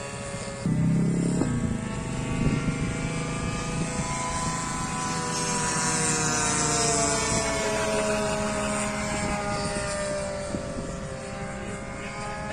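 A radio-controlled model warbird plane's motor and propeller whining in flight. Its pitch slides down in the middle as the plane passes, and a burst of low rumble cuts in a little under a second in.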